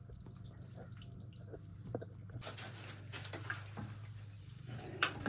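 Water dripping and trickling as it drains out of a pool pump housing, with a few light clicks.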